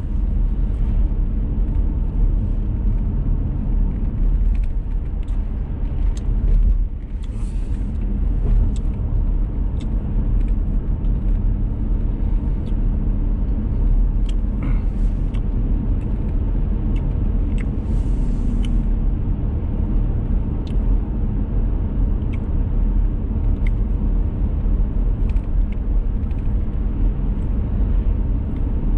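Steady low rumble of a car's tyres and engine heard from inside the moving car on a wet road, with scattered faint clicks.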